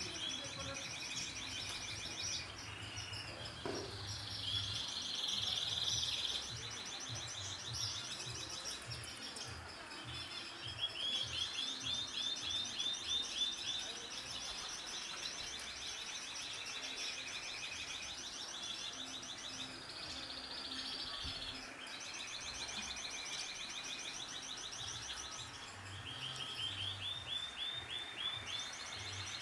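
Many small birds chirping and trilling together, a dense chorus of rapid repeated notes from several birds at once.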